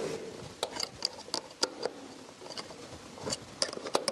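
Irregular light clicks and taps of small accordion-mechanism parts being handled and set down on a wooden workbench, about a dozen scattered through the stretch.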